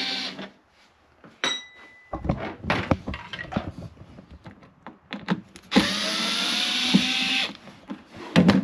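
Power Fist cordless electric screwdriver backing out self-tapping screws. A motor whine that cuts off just after the start, then clicks and rattles of handling. Another run of about two seconds, its whine slowly rising in pitch, follows, and a few sharp clinks come near the end.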